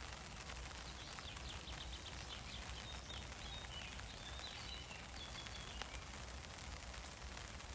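Rain falling on an umbrella: a steady hiss of many small drop ticks. Over it a bird sings a quick series of high chirps from about a second in until about six seconds in.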